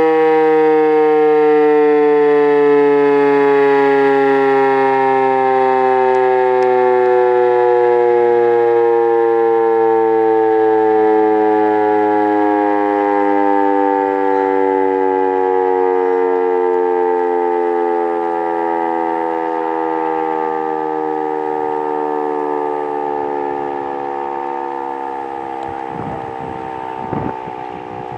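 Electromechanical fire-station siren winding down: one continuous tone whose pitch falls slowly and steadily as it gradually gets quieter, with a couple of faint knocks near the end.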